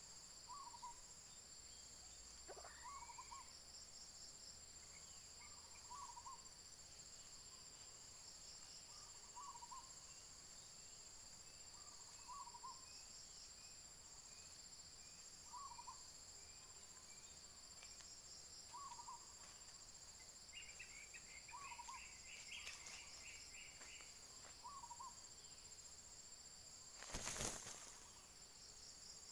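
Faint, steady high drone of insects, with a short call repeating about every three seconds. Near the end comes one brief, louder noise.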